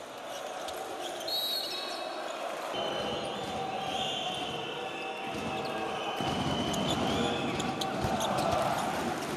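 Basketball arena crowd noise with a short whistle blast about a second in and a basketball bouncing on the court. The crowd grows louder from about six seconds.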